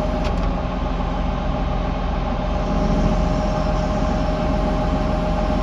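Tractor engine idling steadily, with a constant whine over the low running sound.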